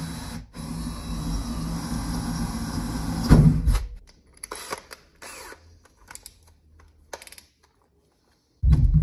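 DeWalt 20V cordless drill boring a 3/8-inch hole through 1-inch steel strapping held in a bench vise, running steadily for about three and a half seconds after a brief stop near the start. Then light clicks and knocks as the drill is lifted away, and a louder sound begins just before the end.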